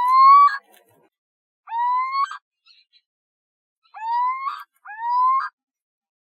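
Little owl calling: four drawn-out, upward-sliding calls, each about two-thirds of a second with a rough, harsh end, the last two coming close together.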